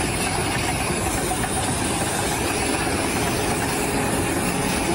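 Steady machine noise, like an engine running, with a hiss.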